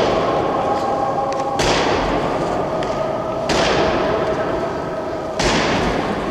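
Soldiers' boots striking a stone floor in a slow ceremonial march: three heavy steps in unison, about two seconds apart, each ringing on in the echo of a large hall.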